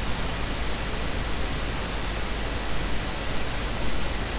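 Steady hiss of background noise on an open microphone, even and unchanging with a low rumble underneath and a faint high tone.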